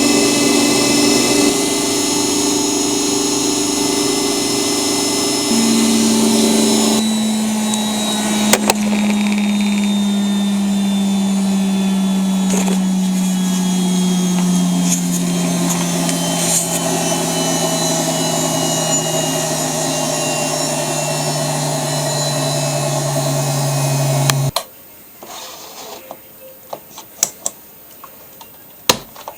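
ELIN WA 14 M washing machine running with a steady motor hum whose pitch slowly falls, then stopping abruptly about 25 seconds in. A few sharp clicks follow in the quiet.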